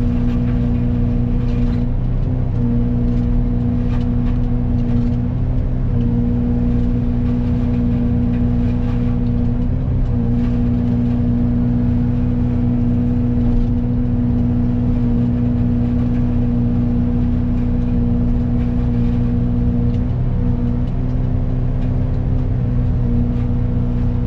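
Excavator diesel engine and hydraulic Fecon forestry mulcher head running steadily under load, a constant hum whose pitch briefly dips a few times as the head bites into brush.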